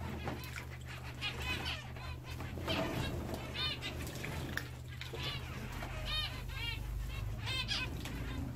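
Zebra finches calling: short, arched beeping calls, often several in quick runs, with wing-flapping splashes from birds bathing in a shallow birdbath.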